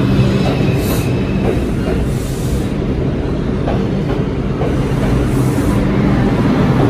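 Bombardier R142 subway train running past along the platform: a steady rumble of steel wheels on rail with a low electric motor hum, a few clicks over rail joints and brief faint squeals.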